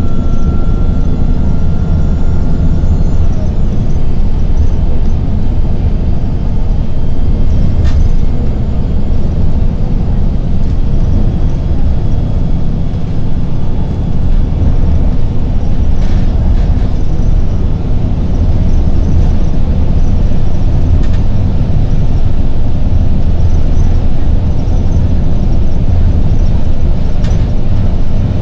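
Inside a moving New Flyer city bus: the steady low drone of the engine and drivetrain mixed with road noise, with a few faint rattles.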